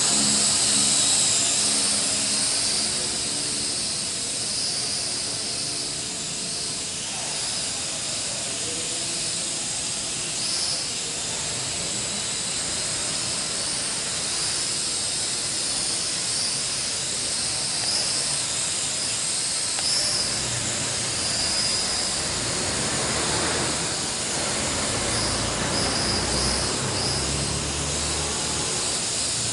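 Small electric RC quadcopter (L6036) in flight: its four motors and propellers make a steady high-pitched whine and hiss whose pitch wavers as the thrust changes. A low rumble joins in over the last several seconds.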